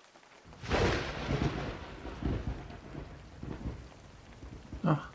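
Thunderclap sound effect with rain: a sudden crack about half a second in, followed by a low rumble that fades away over several seconds.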